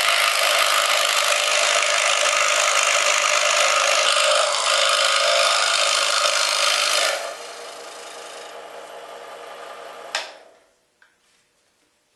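Scroll saw blade cutting through a thin wooden board with a steady, loud rasping buzz. About seven seconds in the cutting stops and only a much quieter running sound is left, which ends with a sharp click near ten seconds, followed by quiet until another click at the end.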